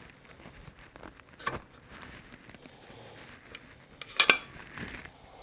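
Metal transmission parts and tools clinking and knocking as they are handled during disassembly of a Subaru TY752 manual gearbox: a light knock about a second and a half in, a loud sharp clank about four seconds in, and another clank at the end.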